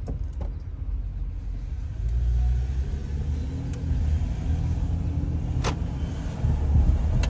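Car cabin noise while driving: a low road and engine rumble that gets louder about two seconds in as the car picks up speed, with a few short clicks.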